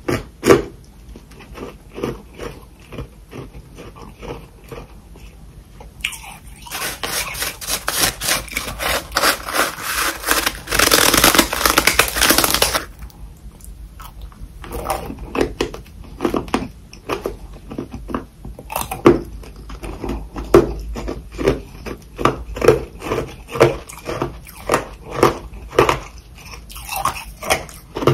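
Freezer frost being bitten and chewed close to the microphone: a steady run of crunches about two a second, with a louder, denser stretch of crunching for several seconds near the middle.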